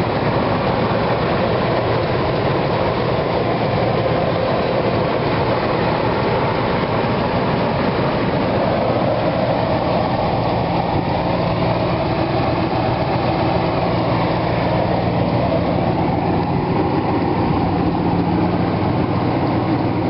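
Ford 4.6L Triton V8 of a 1997 F150 running steadily, fitted with new exhaust manifolds, studs and gaskets. A low steady hum joins the rumble about halfway through.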